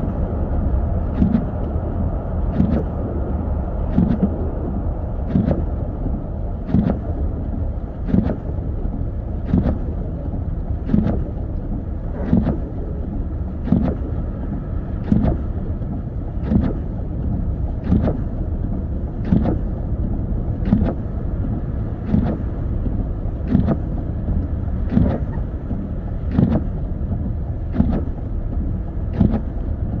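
Steady road and tyre rumble inside a car driving on a snowy highway, with a windshield wiper knocking at each stroke, evenly, a little under once every one and a half seconds.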